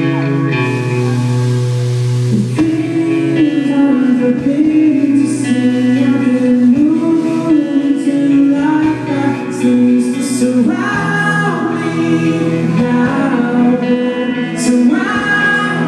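Live rock band playing, led by electric guitar; a male lead vocal comes in about two and a half seconds in and carries on over the band.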